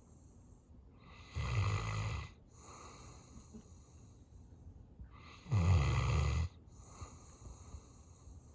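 Sleeping dog snoring: two loud snores about four seconds apart, each lasting about a second, with softer breaths in between.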